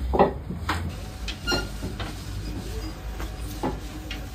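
Bakery clatter: scattered knocks and handling thuds, one with a short metallic ring, over a low steady rumble.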